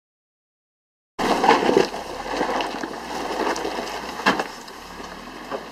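Suzuki Jimny crawling over a rocky track, starting about a second in: tyres crunching over loose rock and gravel, with scattered knocks of stone and one sharp knock about four seconds in.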